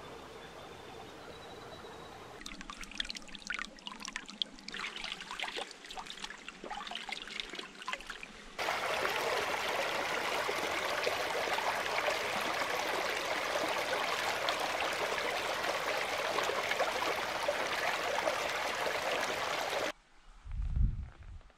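Stream water running over rocks: a steady rush that starts abruptly about nine seconds in and cuts off near the end. Before it comes a quieter stretch of scattered ticks, and a low thump follows shortly before the end.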